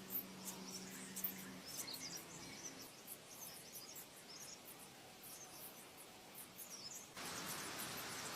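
Faint scattered high chirps of small birds over quiet background noise, with a low steady hum fading out in the first second and a half and a louder hiss coming in near the end.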